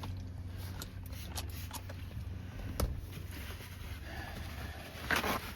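Light handling noises from cleaning inside a truck cab: a few sharp clicks and knocks in the first three seconds and a short rustle about five seconds in, over a steady low hum.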